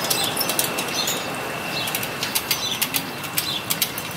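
Irregular light metallic clicks and ticks, several a second, from truing a spoked motorcycle wheel on a truing stand as a spoke wrench turns the spoke nipples. Small birds chirp now and then in the background.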